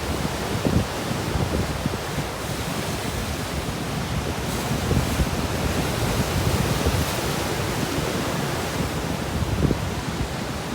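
Sea surf washing steadily onto the shore, with wind buffeting the microphone in low rumbling gusts.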